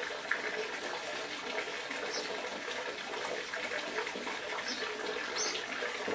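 Steady rushing background noise like running water, with faint light rustles.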